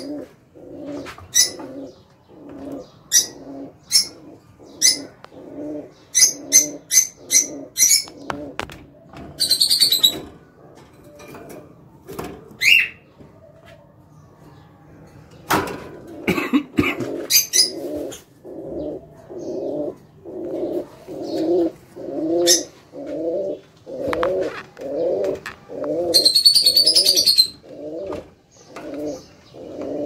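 A mix of caged birds calling: low repeated notes, a little over one a second, under sharp high chirps, with two short bursts of busy high chatter.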